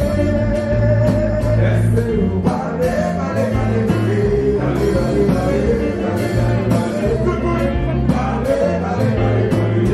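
Live band music: a singer over keyboards, electric guitars, bass and a steady drum beat.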